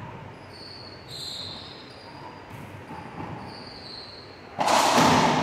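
Racquetball rally: a racquet striking the ball, sneakers squeaking on the hardwood floor, then a loud bang about four and a half seconds in that rings on in the enclosed court.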